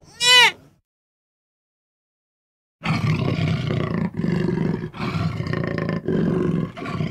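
A short, high bleating call at the start, then after about two seconds of silence a tiger's deep, rumbling growls and roars, in rough pulses broken about once a second.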